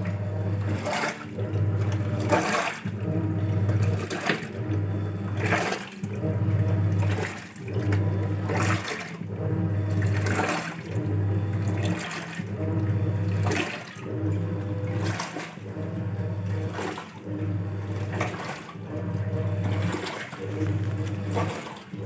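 Denpoo DWF-073HT top-loading washing machine agitating a load: the pulsator motor hums in short runs of about a second, stopping and reversing roughly every one and a half seconds, while the clothes and water slosh around the tub.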